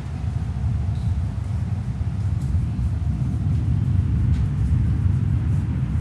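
A steady low rumble, even throughout, with a few faint ticks above it.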